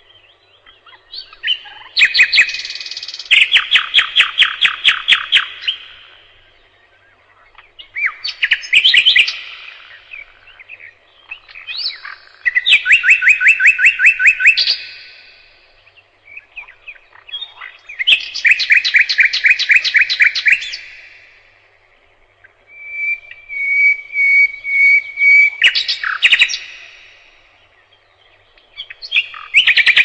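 Nightingale singing: loud phrases of fast repeated notes and trills, each a few seconds long, with short pauses between them. About two-thirds of the way in comes a run of pure whistled notes on one pitch, leading into a trill.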